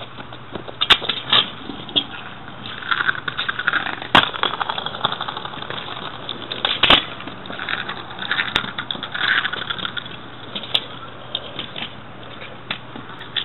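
Kick scooter rolling and rattling over concrete, with several sharp clacks as its deck and wheels strike the ground.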